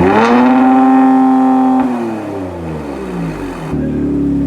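2019 Kia Stinger GT's 3.3-litre twin-turbo V6 through a Borla cat-back exhaust, revved and held at high rpm for about two seconds. It then winds back down and settles to a steady idle a little before the end.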